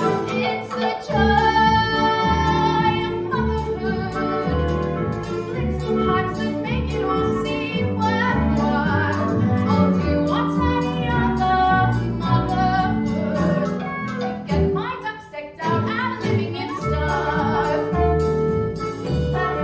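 Musical-theatre song performed live: female voices singing over an instrumental accompaniment.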